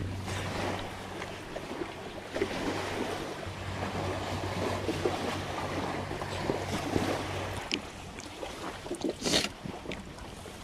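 River water flowing and lapping against the bank, with light knocks and scrapes of chopsticks in a metal pot and a louder knock near the end. A low steady hum stops about three-quarters of the way through.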